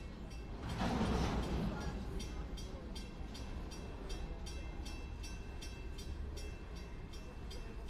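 Freight train rolling slowly past on street-level track, its cars rumbling and clattering, with a louder surge about a second in. A grade-crossing bell rings in a quick steady beat throughout.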